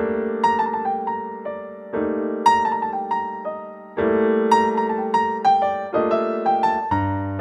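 Background music: a piano playing held chords under a melody of single notes, with a new chord about every two seconds.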